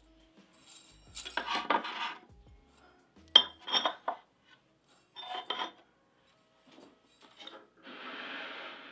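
Small tabletop decor pieces clinking and knocking as they are set down and arranged on a wooden tiered tray, in three short clusters, with a second-long noisy scrape near the end.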